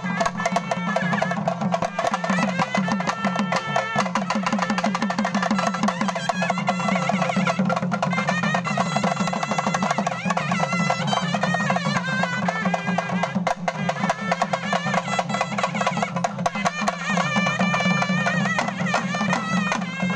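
Live traditional procession music: frame drums and barrel drums beaten in a fast, steady rhythm, with a reed pipe playing a wavering melody over them.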